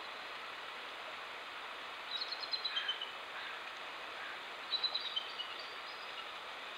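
A songbird calls twice, each call a quick run of high chirping notes stepping down in pitch and lasting under a second, over a steady outdoor hiss.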